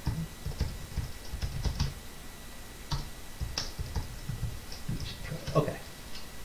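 Typing on a computer keyboard: irregular runs of short keystroke clicks.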